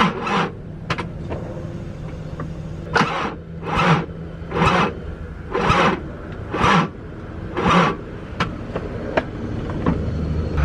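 Car's throttle body being opened again and again by the gas pedal: short, loud rushes of noise about once a second over a steady low engine hum, with a few light clicks between them.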